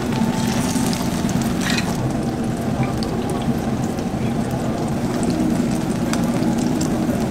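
Battered tofu, leaves and chillies sizzling in oil on a flat steel griddle, with scattered crackles and spits. A steady low hum runs underneath.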